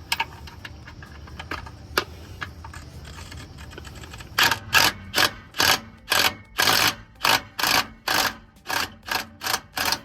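Hand socket ratchet being worked on a starter mounting bolt: a few scattered clicks, then from about four seconds in a steady run of short ratcheting bursts, about three a second, as the bolt is run in.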